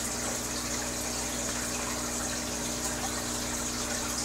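Aquarium filter running: steady splashing and bubbling of water at the tank's surface over a low, even hum.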